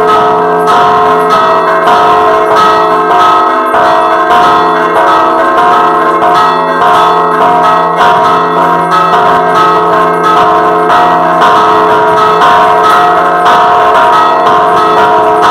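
Church bells rung in a rapid repique at close range: the clapper of a large hanging bell is pulled by rope against the bell over and over, with a smaller bell struck alongside, their strokes coming in quick succession and their ringing tones overlapping.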